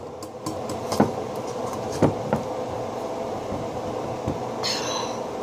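Steady low hum with a few light clicks and knocks as a metal pitcher of frozen liquid is handled.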